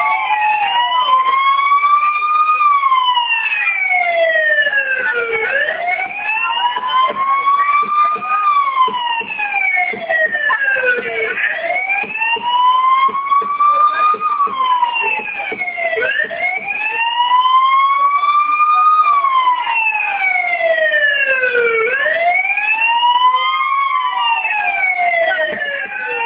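A loud wailing siren that rises and falls in pitch in slow cycles, one about every five and a half seconds.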